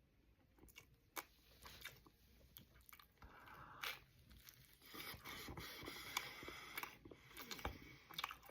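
Faint clicks, creaks and scraping, with a soft rustling noise coming in about three seconds in and growing a little louder about halfway through.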